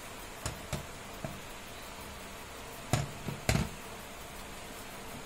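A stainless steel saucepan of spiced milk tea heating on a gas burner, with a steady hiss and a few light knocks of the pan, the two loudest about three seconds in and half a second apart.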